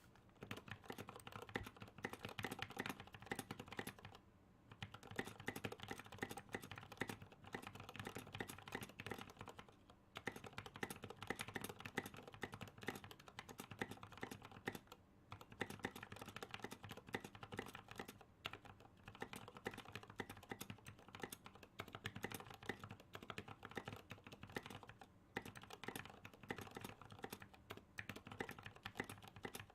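Continuous fast typing on a Clueboard mechanical keyboard with lubed Gateron Black linear switches and tall SA-profile keycaps, keystrokes clacking in quick runs with a few brief pauses.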